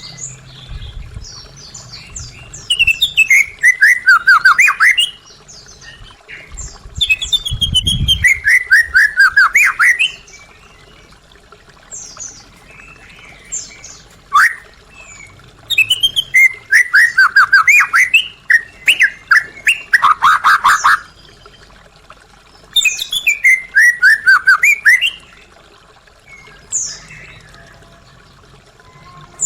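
White-rumped shama singing: four loud phrases of rapid notes, each run falling in pitch, with short softer calls in the pauses between them.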